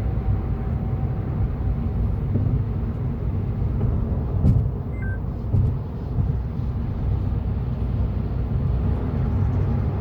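Steady low road and engine rumble of a car driving at highway speed, heard from inside the cabin, with a couple of brief knocks near the middle.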